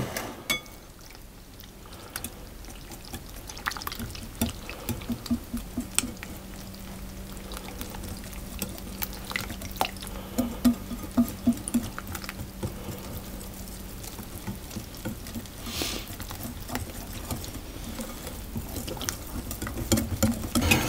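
Wire balloon whisk beating runny pancake batter in a glass bowl: wet stirring and sloshing, with irregular clicks of the wires against the glass that come in quick runs of several a second.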